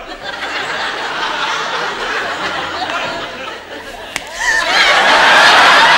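Studio audience laughing, the laughter swelling much louder about four seconds in as applause joins.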